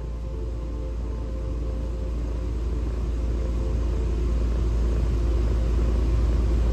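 Steady low rumble inside a parked car's cabin with a faint hum above it, growing gradually louder.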